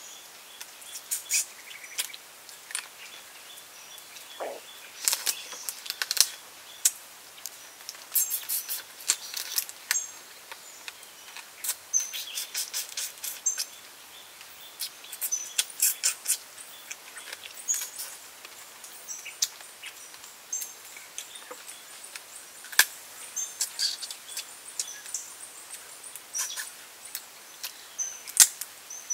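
Eating sounds of steamed prawns eaten by hand: irregular crackles and clicks of prawn shells being peeled, and wet chewing, over a steady forest hiss with short high bird chirps.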